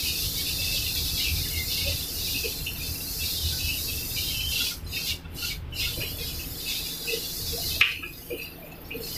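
Noodles, vegetables and seafood sizzling in a hot wok as they are tossed with chopsticks. A steady high hiss sits over a low rumble; the sizzle drops out briefly a few times around the middle, and after a click near the end it thins.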